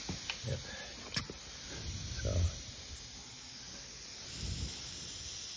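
Phone handling noise: a few soft bumps and a sharp click about a second in, over a steady high hiss.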